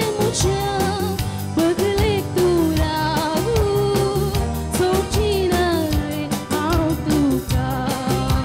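Live band playing a song with a woman singing lead, backed by electronic keyboard, drum kit and electric guitar.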